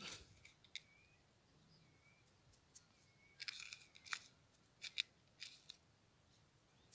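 Near silence with a few faint, short scratchy clicks and rustles, bunched between about three and a half and five and a half seconds in, from hands handling a small plastic cup of cucumber seeds during planting.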